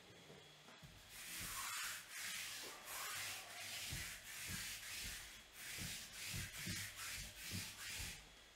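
Rhythmic back-and-forth rubbing or scraping: about a dozen dry, scratchy strokes, each with a soft low thud. It starts about a second in and stops near the end.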